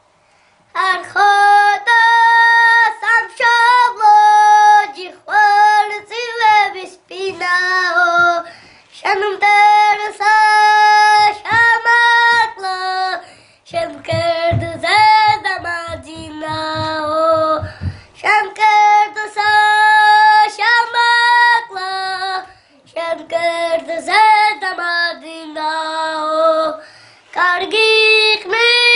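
A child singing a song solo, holding long notes in short phrases with brief pauses between them; the singing starts about a second in.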